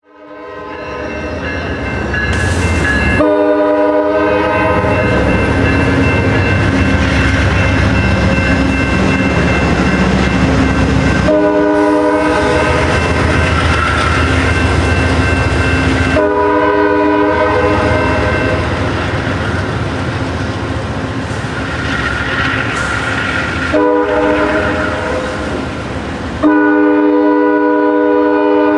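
A passenger train's multi-tone air horn blowing a series of long blasts that run almost into one another, over the low rumble of the diesel locomotive and the train on the rails.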